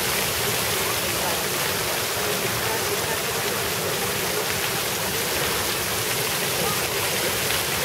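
Fountain water jets spraying onto a bronze sculpture and rocks and falling into the basin: a steady, even rush of splashing water.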